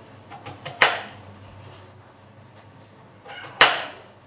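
Kitchen knife cutting a peeled potato into small pieces on a wooden cutting board: two sharp chops of the blade hitting the board, about a second in and near the end, each with a few lighter knocks just before.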